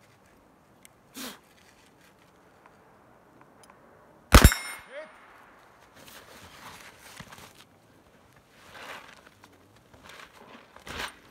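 A single AR-15 rifle shot, with a short metallic ring trailing off right after it, typical of a bullet striking a steel target. Quieter scuffing and rustling follow as the shooter moves in the snow and lifts a heavy pack near the end.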